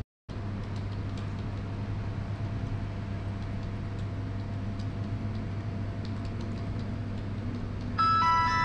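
Steady low room hum with faint scattered ticks, then, near the end, a mobile phone's ringtone starts: several held electronic tones at once.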